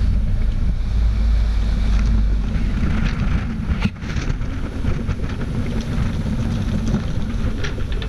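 Wind buffeting the microphone on a sailing yacht under way at sea, a heavy rumble that eases after the first couple of seconds, with water rushing and splashing along the hull.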